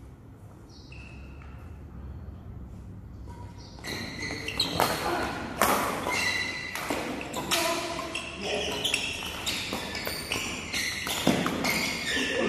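Badminton rally in a large hall: rackets striking the shuttlecock and feet thumping and squeaking on the court floor, picking up about four seconds in.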